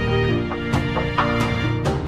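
Background music with a steady beat: held notes over a bass line, with regular percussion hits.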